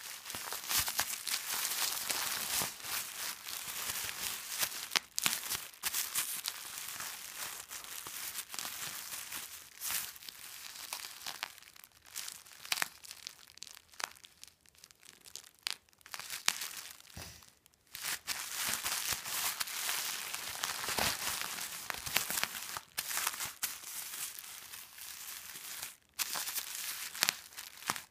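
Plastic bubble wrap being crinkled and handled, a continuous crinkling with many sharp crackles and a few brief pauses.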